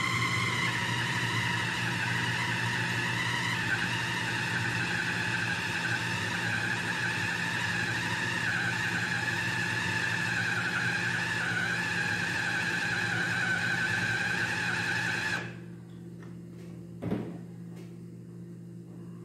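Electric food chopper's motor running steadily as it grinds beef and sago-flour meatball dough, its pitch dropping slightly a few seconds in. The motor stops about fifteen seconds in, followed by a single knock.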